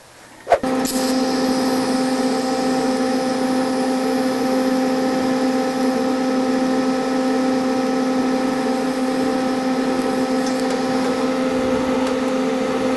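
TIG welding arc filling a trim hole in a car's steel door panel. It strikes with a sharp crackle about half a second in, then holds a steady buzz over a hiss while filler rod is fed into the hole.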